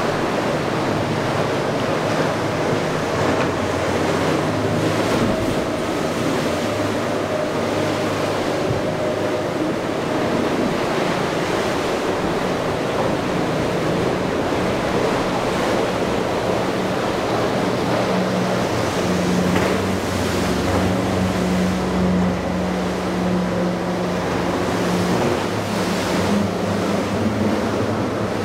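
Rough, churning inlet water and surf, with the drone of boat engines running through the chop; the engine hum grows stronger past the middle.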